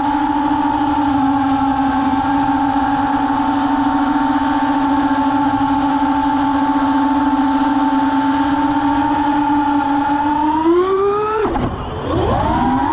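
Emax 1606 3300kv brushless motors spinning HQ 3-inch three-blade props on a 4S FPV quadcopter, recorded by the camera on the frame: a steady, high motor-and-prop whine during a fast cruise. Near the end the whine rises in pitch, dips suddenly and glides back up as the throttle is pushed, cut and brought back through a steep banked manoeuvre.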